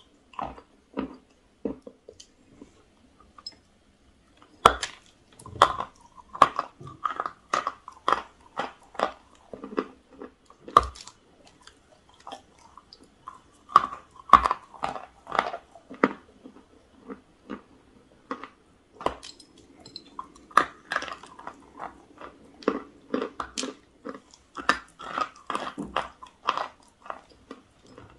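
Close-miked crunching as a person bites and chews pieces of chalk and clay. The crunches come in irregular clusters: sparse for the first few seconds, then dense from about five seconds in.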